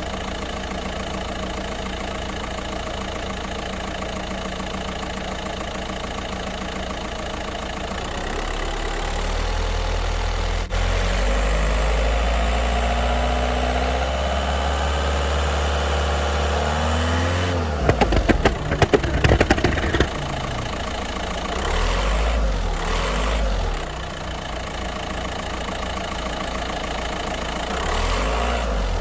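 Straight-piped turbocharged car engine idling, then revved and held with a turbo whistle climbing in pitch. Past the halfway point comes a rapid string of sharp cracks lasting about two seconds, then two shorter revs that drop back to idle.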